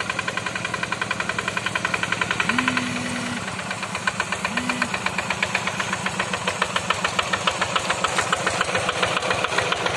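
Single-cylinder diesel engine of a two-wheel hand tractor chugging at a steady, rapid beat under load as its cage wheels work a flooded rice paddy.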